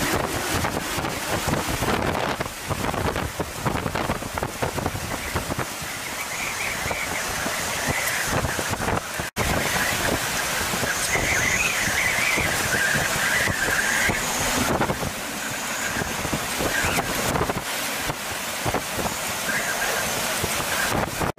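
Hurricane-force wind and driving rain, gusting against the microphone as a loud, steady rush. Through the second half a wavering high whistle rides on top of the wind.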